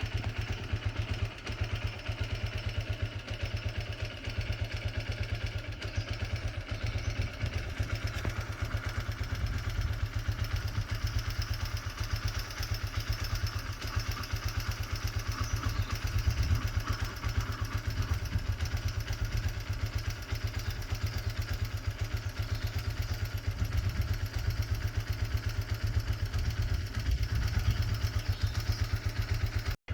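A motor vehicle's engine running steadily while on the move, with a heavy low rumble throughout.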